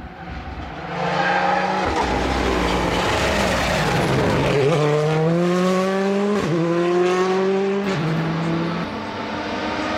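A rally car's engine approaching and accelerating hard, the pitch climbing through the gears with two upshifts in the second half before it fades.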